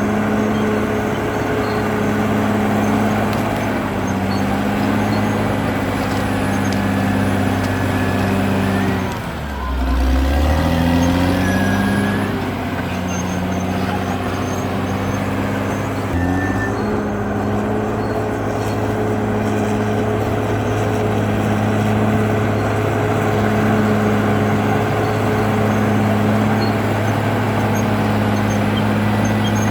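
CAT D6R XL bulldozer's diesel engine running hard under load. The engine speed drops sharply about nine seconds in and again around sixteen seconds, each time climbing back up.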